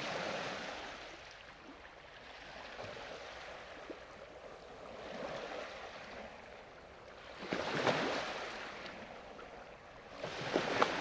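Water washing in slow swells, rising and falling, loudest about eight seconds in.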